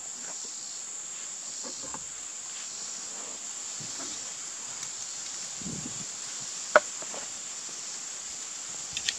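Steady high-pitched insect chirring, with a sharp click about two-thirds of the way in and two lighter clicks near the end as the air rifle's metal action is handled on the padded case.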